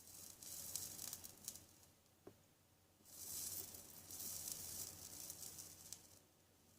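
Two spells of soft hissing with faint crackles, the first about two seconds long and the second about three: heat being played over heat-shrink tubing on a cable joint to shrink it. There is a single small click between them.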